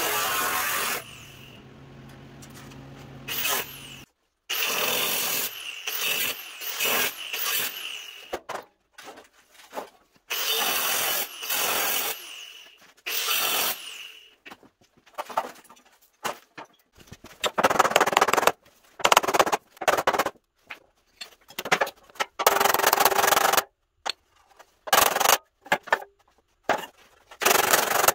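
Angle grinder grinding the rusted steel of a 1948 GMC pickup tailgate, in a series of short bursts that stop abruptly, with the grinder winding down about a second in. Near the end, short sharp hammer blows on the tailgate's sheet metal.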